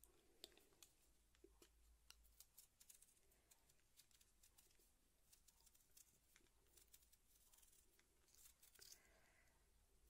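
Faint, irregular clicks and scrapes of a kitchen knife paring the skin off a raw potato held in the hand.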